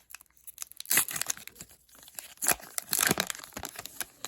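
A hockey card pack wrapper being torn open and crinkled, in two noisy bursts: one about a second in and a longer one near three seconds.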